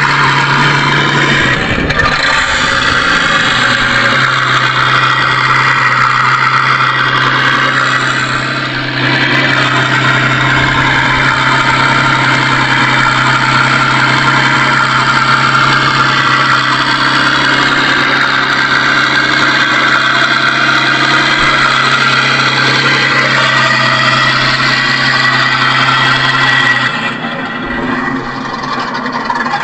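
Electronic engine-sound unit of a 1/6-scale Armortek Panther model tank, playing a simulated tank engine idling steadily through its speaker. The low hum cuts out near the end.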